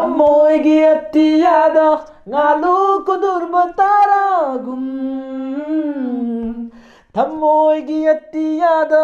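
A man singing unaccompanied in three phrases of held and sliding notes; the middle phrase ends on a long, low held note.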